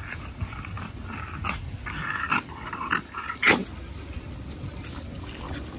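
Exotic bully dogs playing together, making short, scattered vocal noises, with two sharper, louder ones about two and a half and three and a half seconds in.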